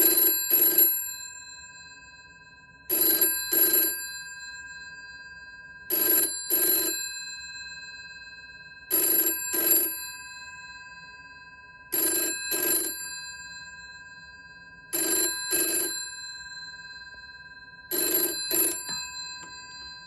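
1965 GPO 706 rotary-dial telephone's bell ringing in the British double-ring pattern: seven pairs of short rings about three seconds apart, the gongs ringing on and fading between pairs. It is the exchange's ring-back call after a dial-out test.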